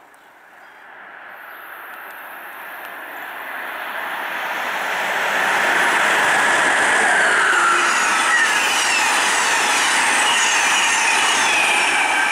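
Amtrak ACS-64 electric locomotive and its passenger cars passing at speed: a rushing rumble of wheels on rail that swells steadily as the train approaches, then holds loud as the cars go by, with thin high squeals gliding down in pitch from about halfway.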